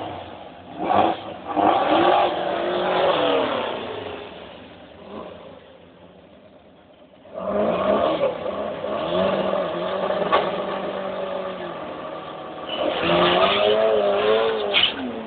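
Modified car engine revved in blips that rise and fall, then running steadily, then revved again near the end, with a quieter lull around the middle.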